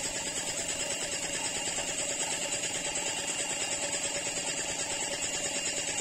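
A motor running with a fast, even pulse under a steady high hiss, supplying a paint spray gun that is spraying paint.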